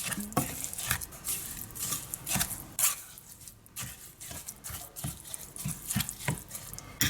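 A spoon stirring a thick, oily mash of herbs in a container: irregular wet scrapes and light clinks.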